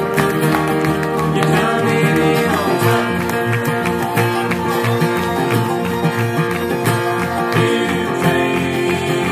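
Bluegrass string band playing live on fiddle, mandolin, guitars and upright double bass, with a steady plucked bass beat under the melody.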